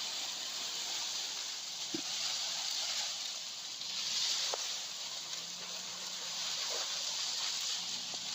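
A steady high hiss, with a few faint ticks and a faint low hum that comes in partway through.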